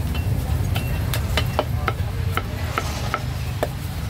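Meat cleaver chopping roast duck on a thick round wooden chopping block: about ten sharp knocks at an uneven pace, over a steady low rumble.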